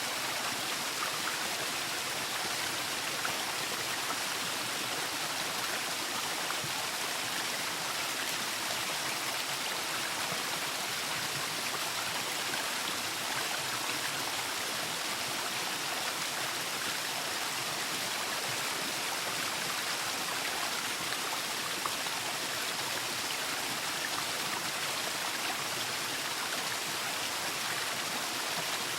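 Waterfall: a steady rush of falling water, even and unbroken, with the hiss weighted toward the high end.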